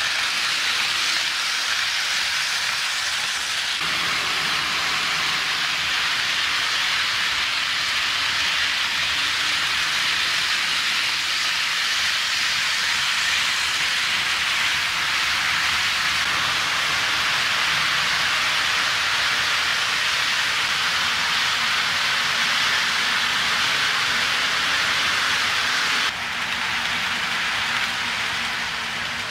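HO scale model freight train rolling along sectional track: a steady rushing hiss of its wheels on the rails, with abrupt shifts in tone about four seconds in and a few seconds before the end.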